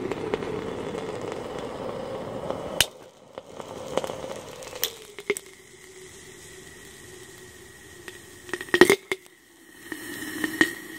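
Sodium reacting violently with bromine and water in a glass flask: a loud sizzling hiss that cuts off about three seconds in, then scattered sharp pops and crackles, the loudest cluster about nine seconds in, over a faint steady hum.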